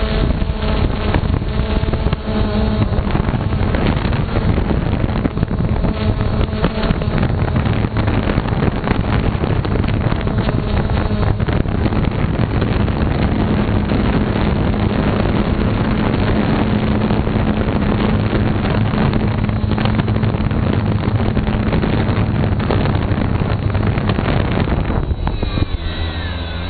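Small camera drone's electric motors and propellers buzzing steadily as it flies low and slow, with wind rushing over the microphone. Near the end the wind noise drops away and the motor whine wavers in pitch.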